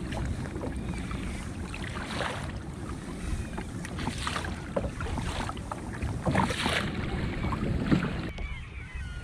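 Water splashing and sloshing against a kayak's hull in repeated surges, over a steady rumble of wind on the microphone.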